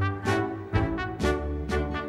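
Instrumental music: a melody of separate held notes, about two a second, over a strong low bass.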